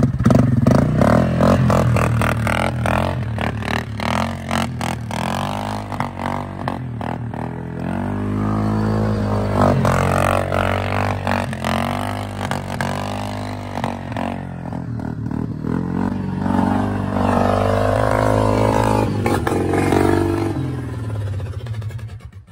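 Yamaha Grizzly 700 ATV's single-cylinder four-stroke engine revving up and down as the machine is ridden on wooden wheels, over a rapid clatter.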